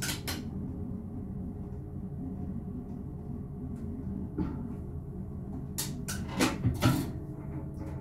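Steady low rumble of a BLS RBDe 566 multiple-unit train running along the line, heard from inside the driver's cab. Sharp knocks cut across it: one at the start, one about four and a half seconds in, and a quick cluster of four around six to seven seconds in.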